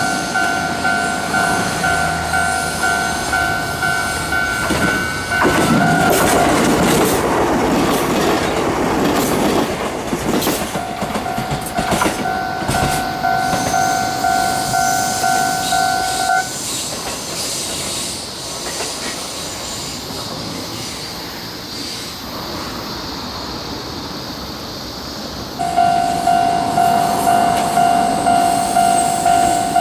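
Train passing with clattering wheels, and a railway level-crossing warning bell ringing in an even two-tone pulse. The bell stops about five seconds in, comes back around eleven seconds, drops out again around sixteen seconds, and returns near the end.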